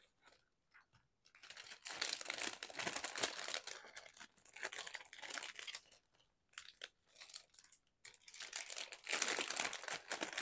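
Clear plastic bag crinkling and rustling as hands work butterfly pendants out of it, in two spells with a short pause in the middle.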